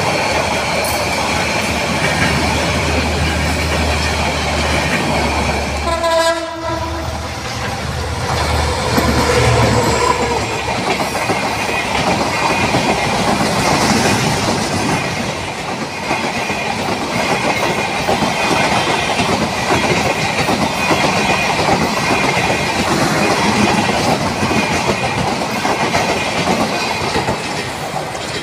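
Bangladesh Railway intercity passenger carriages passing close by: steady rumble and clatter of wheels on the rails. There is a short horn note about six seconds in, then after a cut another train passes with the same steady running noise.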